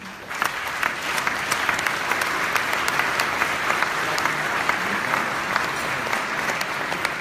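A large audience applauding: many hands clapping at once, starting suddenly and holding steady.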